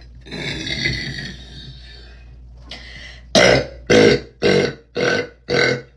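A woman burping: a long, drawn-out rough burp, then from about three seconds in a quick, loud string of short burps, about two a second.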